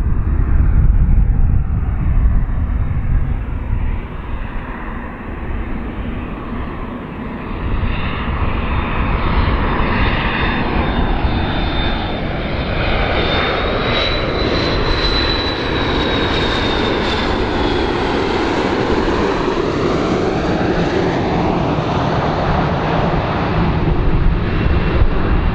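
MD-80-series airliner's rear-mounted turbofan engines on landing approach, gear down, flying past: a steady jet rumble with a high whine that rises slightly as the plane comes nearest, about halfway through, then drops away.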